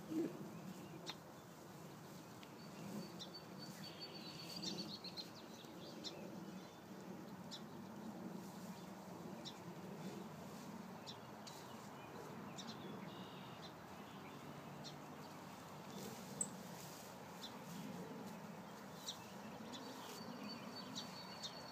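Quiet open-field ambience with a faint steady background hiss and soft low rumbles, and a thin, high bird trill heard twice: a few seconds in and again near the end.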